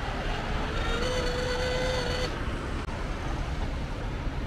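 Road traffic noise with a steady rumble, heard while riding a bicycle along a road. A held, pitched tone with several overtones sounds near the start and stops after about two seconds.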